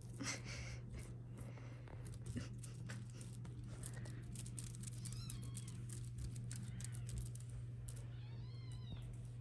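British Shorthair kittens mewing in short, high-pitched calls, a couple about five seconds in and a quick run of them near the end, over small scrabbling and rustling sounds of play. A steady low hum runs underneath.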